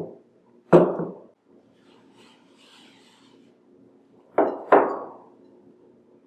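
Biscuit dough and hands thumping on a floured cutting board: one thump about a second in, then two close together near the five-second mark, with faint rubbing between.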